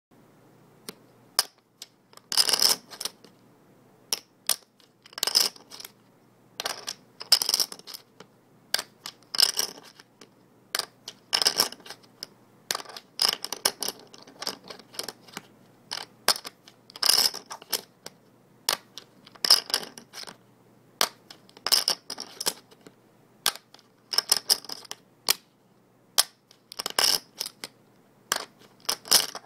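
Poker chips being shuffled by hand, clattering in quick runs of clicks about every two seconds, with single clicks in between.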